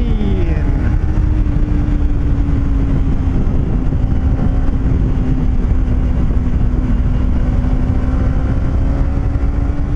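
Kawasaki Ninja 300's parallel-twin engine running at a steady cruising speed under heavy wind rush on the helmet camera's microphone; the engine note sags slightly toward the end.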